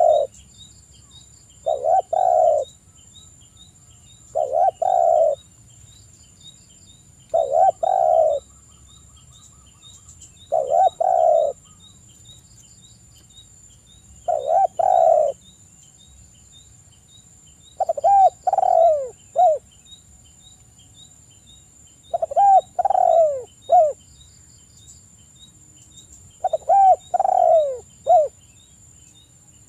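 Spotted dove (tekukur) cooing: a repeated two- or three-part coo phrase about every three to four seconds, the later phrases ending in a short clipped note. A faint fast high ticking runs in the background.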